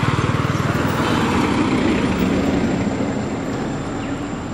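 A motor vehicle's engine running close by on the road, with a fast, even low pulsing, loudest at the start and fading away as it passes.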